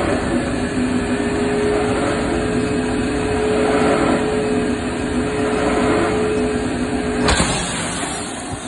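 Air blower of a window pressure-test chamber running steadily, a loud rushing noise with a steady hum. About seven seconds in, the hum cuts off with a sharp knock, and a hissing rush of air carries on.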